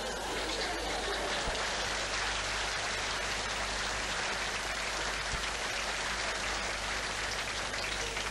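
A large audience clapping and laughing, a steady dense patter of many hands, easing off at the very end.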